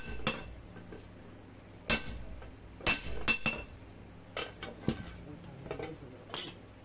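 Hand hammer striking a red-hot steel blade on an anvil: about ten irregular blows, a few louder ones with a short metallic ring.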